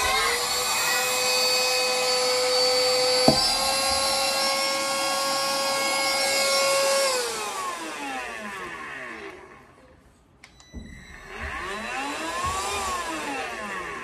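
Xiaomi cordless handheld vacuum cleaner running with its crevice nozzle fitted: a steady high motor whine that steps up slightly in pitch with a click about three seconds in. About halfway through it is switched off and winds down. It is then switched on again briefly, whining up and back down near the end.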